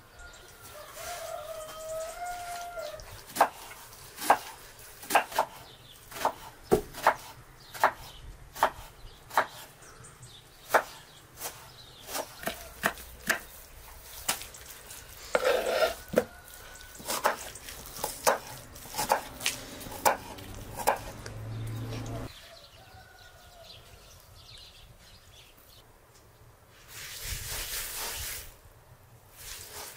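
Kitchen knife chopping onion on a wooden cutting board: a steady run of sharp knocks, a little over one a second. A rooster crows near the start, and a brief hissing rub comes near the end.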